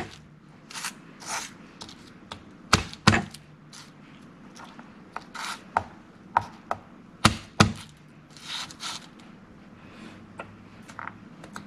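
Chef's knife cutting garlic cloves on a cutting board: irregular sharp knocks of the blade on the board, often in quick pairs, between softer scraping swishes.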